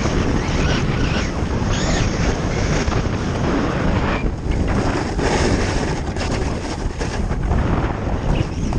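Heavy wind rush buffeting an action camera's microphone as a snowboarder rides fast down the course, with the board's edges scraping and hissing over packed, rutted snow through the turns, swelling every second or two.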